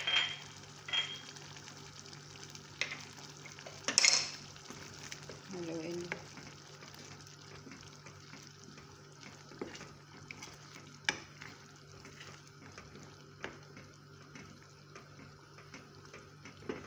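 A wooden spoon stirring a pot of mashed fava beans for ful medames, with scattered sharp knocks of the spoon against the aluminium pot over a steady simmering sizzle. The loudest knock comes about four seconds in.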